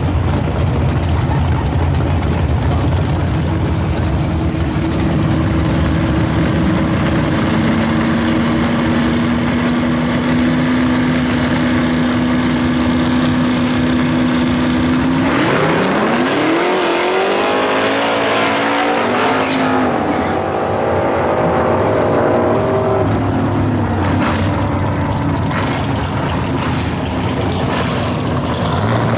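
Drag-racing cars' engines rumbling at idle, then a Pontiac Firebird drag car holding a steady rev at the starting line before launching about halfway through. Its revs climb and drop back through several gear changes as it accelerates away down the strip, and the sound fades.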